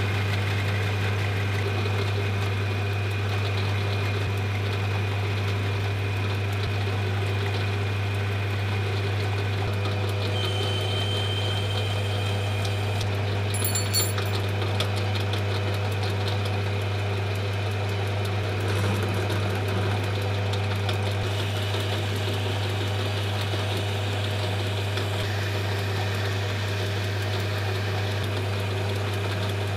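A machine running steadily with a strong low hum, with a brief cluster of clicks about 14 seconds in.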